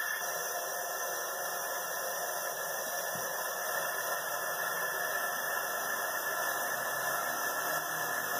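Compressed-air Tesla turbine with lexan discs spinning at high speed: a steady hiss of rushing air with a whine from the rotor.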